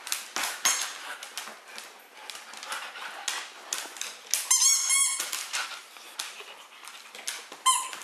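Siberian huskies chewing and tussling over a plastic bottle: a run of crackling clicks from the bottle, with a high, wavering squeak about halfway through and a brief one near the end.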